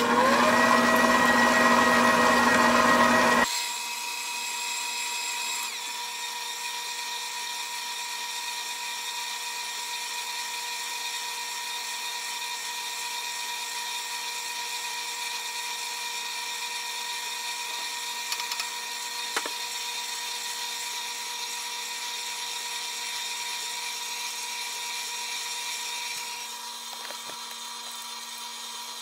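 KitchenAid KSM55 bowl-lift stand mixer running with its dough hook, mixing flour into wet ingredients for bread dough: a steady motor and gear whine. It is louder at first, rising slightly in pitch as it picks up speed, then drops abruptly in loudness about three and a half seconds in and runs on steadily.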